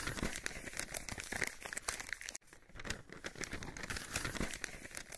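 Paper crinkling and rustling, a scroll-unrolling sound effect, in two passes split by a sudden break a little over two seconds in.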